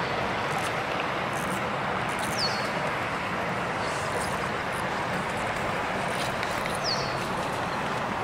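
Steady rushing water from nearby rapids, with two short high chirps about two and a half and seven seconds in.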